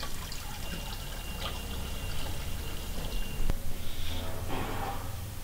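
Salt pouring from a plastic tub into a glass tank of water. After a click about three and a half seconds in, a hand swishes through the water to dissolve the salt.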